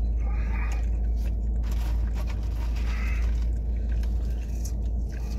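Someone eating a sandwich: scattered bites, chewing and small scraping and crinkling noises over a steady low rumble.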